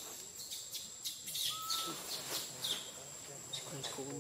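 Forest insects buzzing at a steady high pitch, with short chirps repeating irregularly and a single brief bird whistle about one and a half seconds in.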